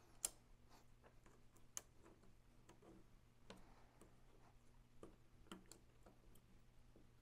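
Faint, irregular small clicks and taps of plastic gearbox parts and a coil spring being handled while the spring is fitted into a gel blaster's open gearbox housing, the sharpest about a quarter second in and again just under two seconds in.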